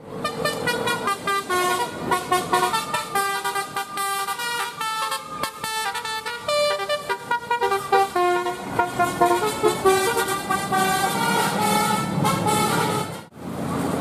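A bus's telolet basuri horn, a multi-tone musical air horn, playing a quick melody of changing notes. It cuts off abruptly about a second before the end, leaving a low engine and traffic hum.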